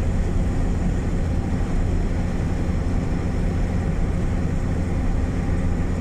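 Car driving at a steady speed, heard from inside the cabin: a steady low drone of engine and road noise.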